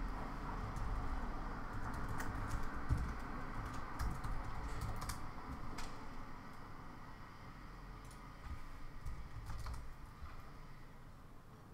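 Typing on a computer keyboard: scattered separate keystrokes over a steady background noise that grows fainter toward the end.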